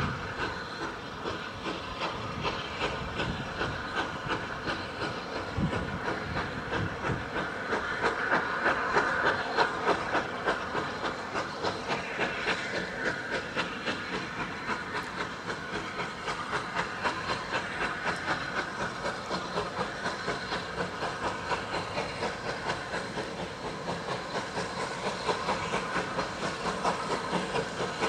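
Rebuilt Bulleid Battle of Britain class Pacific No. 34059's three-cylinder steam locomotive exhaust, a steady, quick run of even beats over a hiss of steam as it pulls away with its train.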